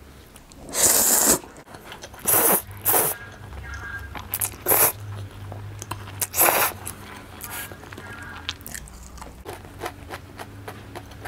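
Close-miked eating of spaghetti bolognese: about five loud, short slurps of noodles in the first seven seconds, then chewing with many small wet mouth clicks.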